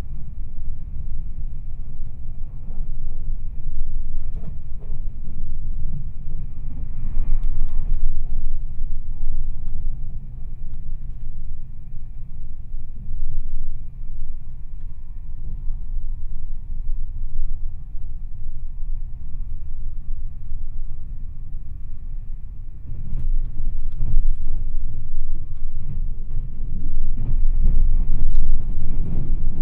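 Meitetsu 2200 series limited-express electric train running at speed, heard from inside the passenger car: a steady low rumble of wheels on rail. There are a few sharp clacks about seven seconds in, and the running noise grows louder over the last several seconds.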